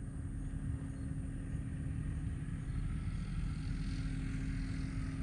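Steady low outdoor rumble with a faint constant hum over it, growing slightly louder.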